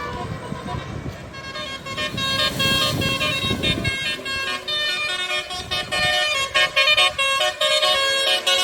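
A bus's telolet multi-tone musical horn playing a fast run of short notes at changing pitches, starting about a second in and getting louder toward the end. A low vehicle engine rumble under it fades out about four seconds in.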